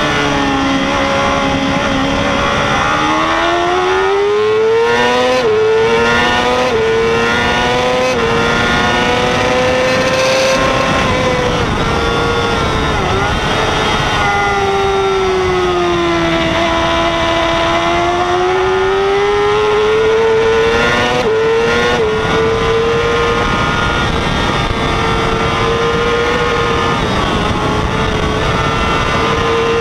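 2006 Yamaha YZF-R6 supersport's inline-four engine at racing revs, heard from an onboard camera with wind rushing past. Its pitch climbs with quick upshifts that briefly dip the note, eases down and climbs again, then holds high near the end under full throttle.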